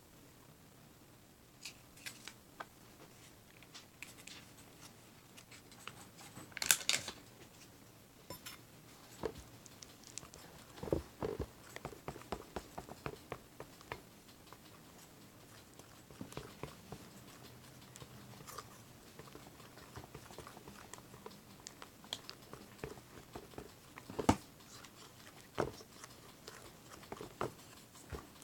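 Fluffy slime base of glue and shaving cream being stirred and mixed: irregular soft squishing and clicking, with a sharper, louder sound about seven seconds in and a knock about twenty-four seconds in.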